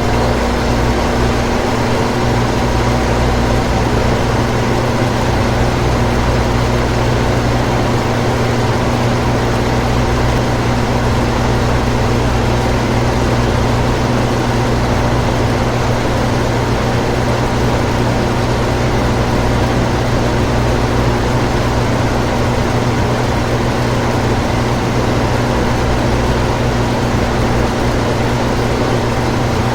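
Air conditioner running steadily: an even rush of fan air over a constant low electrical hum.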